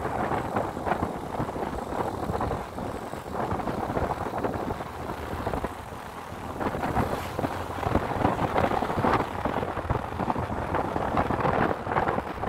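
Wind buffeting the microphone on a moving Yamaha motor scooter, with the scooter's engine and tyre noise running beneath. The rush of air rises and falls unevenly, easing briefly about halfway through.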